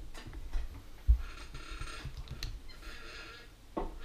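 Small mechanical clicks and knocks with a dull thump about a second in, and a stretch of rustling through the middle.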